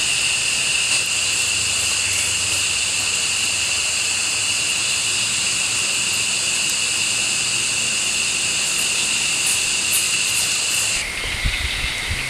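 Dense, steady chorus of forest insects buzzing in several high pitches; it cuts off abruptly about eleven seconds in, leaving a lower, fainter steady trill and a few low knocks.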